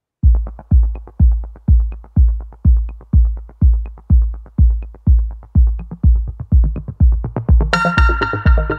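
Electronic background music with a steady deep kick drum about twice a second. A synthesizer melody joins in near the end.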